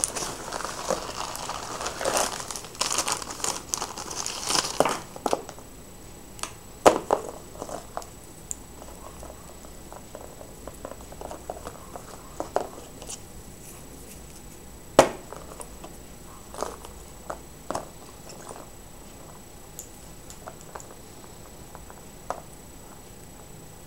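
Plastic bubble mailer crinkling and rustling as it is handled and opened, dense for the first five seconds, then scattered small clicks and taps of handling, with one sharp click about fifteen seconds in.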